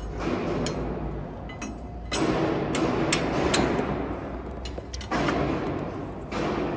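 Light metallic clinks and taps, several scattered through the first four seconds, as steel parts of a conical twin-screw extruder are handled during assembly. Under them runs a steady low hum, with a rushing noise that swells for about three seconds in the middle and again near the end.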